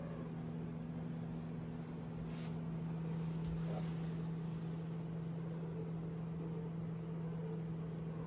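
A steady low mechanical hum, holding one constant pitch, with one of its higher tones dropping out about three seconds in and a couple of faint soft taps.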